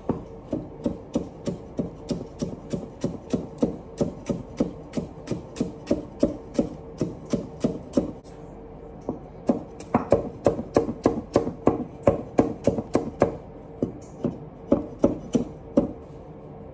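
Chinese cleaver mincing carrots on a thick wooden chopping board: steady knocks about three a second, a short pause about halfway, then a faster run of about four chops a second and a few more near the end.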